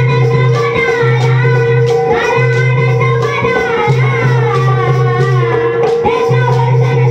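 Music: a singing voice over a steady held drone, with pulsing bass notes and light rattling percussion.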